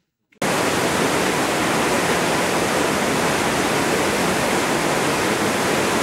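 Waterfall rushing, a loud, steady, even noise of falling water that starts abruptly about half a second in.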